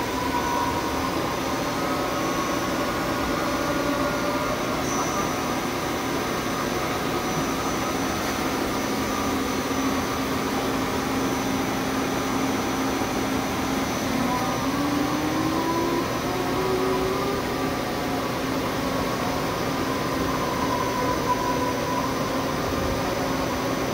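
Amera Seiki TC-2L CNC lathe running under program with its spindle turning: a steady machine whir and hum with a few held tones, one of which rises in pitch a little past the middle.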